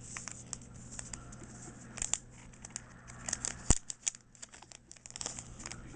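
Pokémon trading cards and their foil booster-pack wrappers being handled: a run of crisp rustles and flicks as cards are slid through the hands, with one sharp click a little past halfway.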